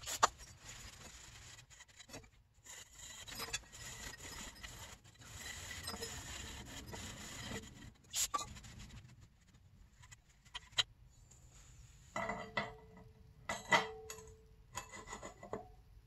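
Rag wiping and rubbing the rear wheel hub's sprocket mounting surface, a steady scrubbing for the first half. In the second half, a few light metal clinks and knocks as parts are handled.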